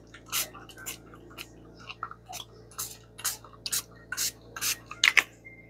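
Small pump spray bottle of ink stain being spritzed over paper again and again, a dozen or so short sprays at about two a second.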